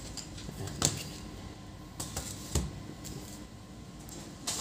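A few light clicks and knocks as laptop parts, the detached display panel and the opened base, are handled and set down on a work mat, with low hiss between them.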